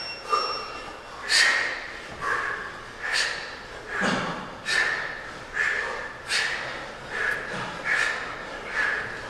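Forceful breaths from men doing one-arm kettlebell swings, one sharp breath with each swing, just over one a second.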